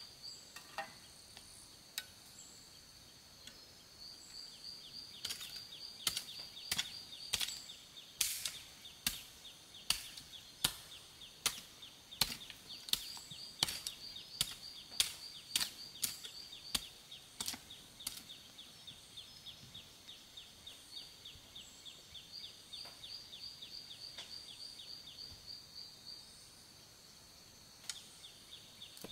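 Sharp chopping strikes, about one and a half a second, running for roughly a dozen seconds before thinning out to a few scattered ones. Underneath is a steady, rhythmic insect chirping.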